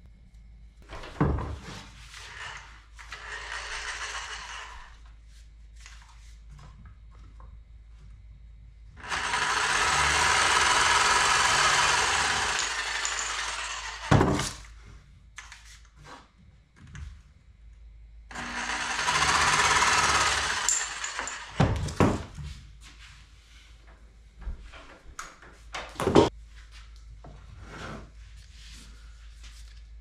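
Jigsaw cutting through a wooden dowel in two runs, the first about nine seconds in and lasting about four seconds, the second a few seconds later and a little shorter. Sharp knocks come between the cuts as the tool and pieces are handled on the bench.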